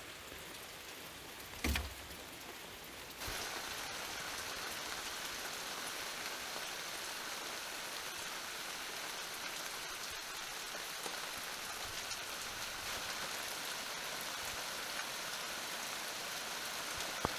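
Gentle rain falling, a steady even patter. A single soft thump comes near the start, and about three seconds in the rain becomes louder and stays steady.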